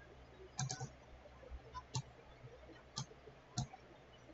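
Computer mouse buttons clicking, faint and sharp, about five clicks at uneven spacing with a close pair near the start.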